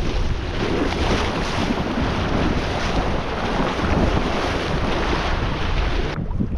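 Rushing, splashing water of a shallow river riffle around an inflatable kayak, with wind buffeting the microphone. The sound cuts off suddenly near the end into a duller rumble.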